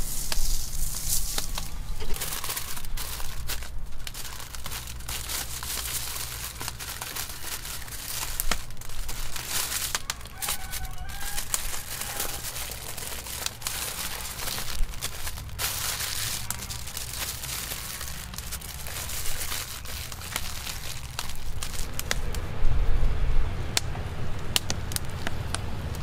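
Wood fire crackling, with many sharp snaps and pops over a steady hiss, and a louder low rumble near the end.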